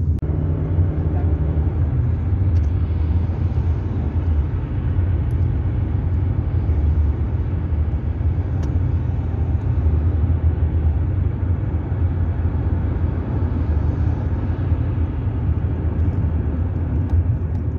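Steady low rumble of tyre and road noise with engine hum from a car driving at speed, heard from inside the moving car.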